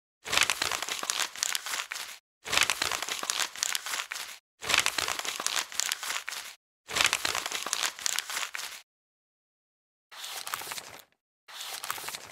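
Thin gold sheet crinkling and scraping as it is worked with a hand tool. It comes in four bursts of about two seconds each, then two shorter bursts near the end, with dead silence between.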